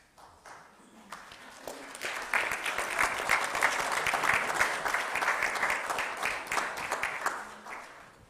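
A congregation applauding: scattered claps about a second in build into full applause that tapers off near the end.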